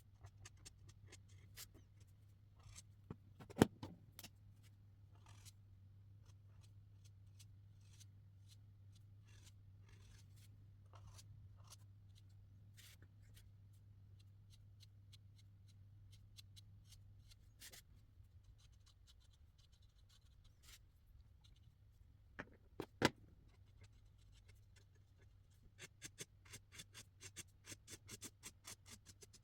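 Felt-tip markers stroking and tapping on paper in short, quiet strokes. There are two sharper clicks, one about three seconds in and one past the twenty-second mark, and a quick run of short strokes near the end.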